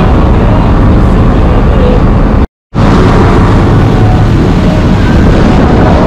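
Loud wind rumble buffeting the microphone aboard a moving tour boat, mixed with the boat's engine noise. The sound cuts out completely for a moment about two and a half seconds in.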